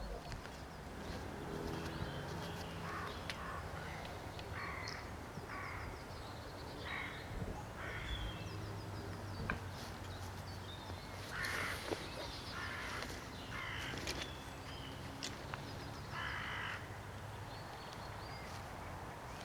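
A crow cawing: a string of short, harsh caws about a second apart, pausing briefly partway through and then resuming.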